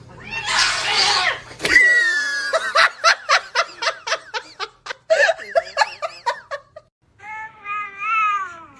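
A rough noisy burst, then a person laughing in quick repeated bursts for several seconds, then a cat's single long meow that rises and falls near the end.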